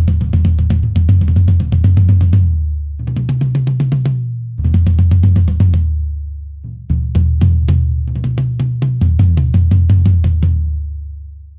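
Toms played in fast runs of strokes, close-miked with an Audio-Technica ATM230 tom microphone and run through an API Vision channel strip with EQ and gate. Four runs move between a higher and a lower tom, each ringing out before the next, and the last rings out and fades near the end.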